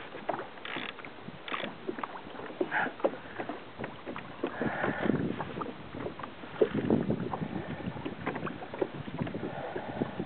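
Water slapping and splashing against a plastic kayak hull on choppy sea, with many irregular small knocks and clicks.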